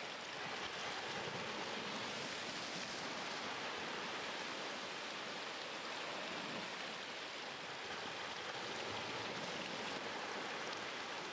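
Seawater surging and foaming through crevices in shoreline rocks, with small waves washing on the rocky shore: a steady, even hiss of moving water.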